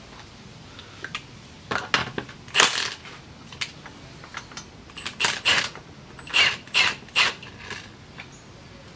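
Milwaukee FUEL cordless power tool run in several short bursts, driving a bolt at the pitbike's rear wheel.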